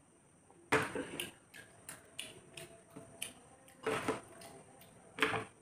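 Steel tumbler and plates knocking and clinking on a metal tray as they are set down and moved about: a run of uneven clicks and knocks, the loudest about a second in, about four seconds in and near the end.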